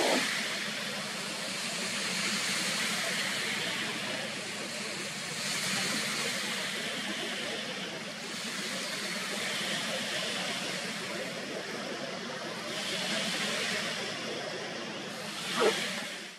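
Steady outdoor background hiss, with its higher part swelling and fading every few seconds. A short knock comes near the end.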